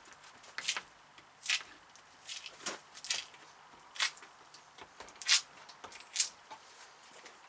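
Short, irregular scraping and tearing strokes, about eight of them, from hand-stripping greasy, bitumen-coated lead-sheathed copper cable; the loudest come about five and six seconds in.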